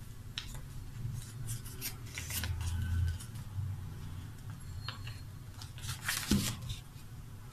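A sheet of paper rustling and crinkling in the hands as it is folded and creased, in short irregular scrapes, over a low steady hum.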